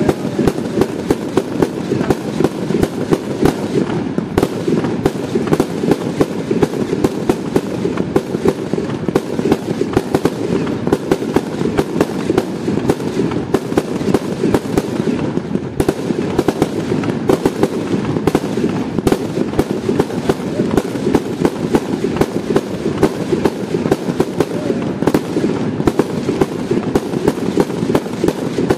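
Aerial fireworks display: a continuous rapid crackle of small bangs, several a second, over a steady low din.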